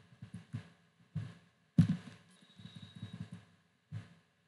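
A few sparse, irregular soft thumps and clicks from a computer mouse being clicked, the loudest just under two seconds in.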